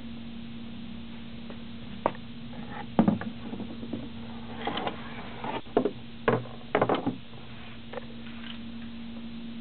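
A large model speed boat hull being handled and turned on a hard floor: a series of sharp knocks and clatters, several close together in the middle, over a steady low hum.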